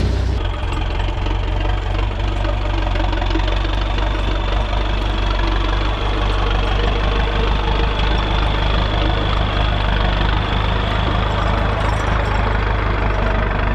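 Massey Ferguson 275 tractor's diesel engine running steadily, with a faint steady high whine above the engine note.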